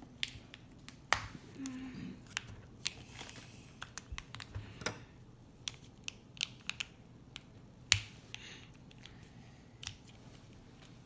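Small plastic toy packaging being handled: irregular sharp clicks and taps, with a louder click about a second in and another near eight seconds.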